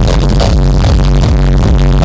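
Electronic hard dance music, hardstyle, playing very loud over an arena PA system with a steady pounding kick-drum beat. The recording is crushed and distorted by the sheer volume.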